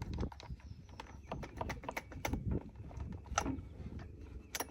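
Irregular light clicks and knocks from a chainsaw being handled, with a sharper click a little past halfway.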